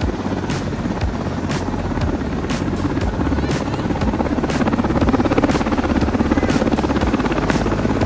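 Helicopter flying over with a steady, regular beat from its rotor blades, growing louder about halfway through.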